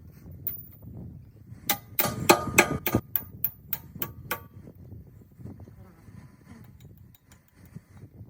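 Hammer striking steel: a quick run of about a dozen sharp, ringing blows starting about two seconds in and stopping near the middle, over a low workshop background.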